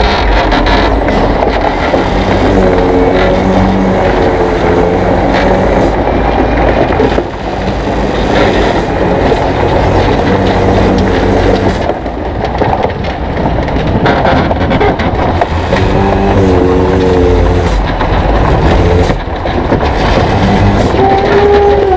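Loaded Volvo FH16 log truck rolling down a gravel mountain track, a loud, steady rumble and rattle of the rig. A wavering squeal rises over it a few times.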